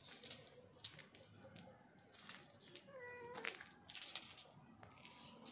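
Domestic cat giving one short meow about three seconds in, over faint scattered clicks.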